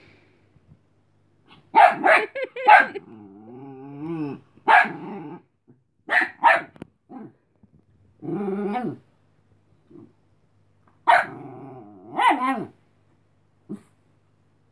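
Chihuahua puppy barking and growling at a Patterdale terrier that is pestering her to play, warning it to go away. Short high barks come in clusters of two or three, with long wavering growls between them.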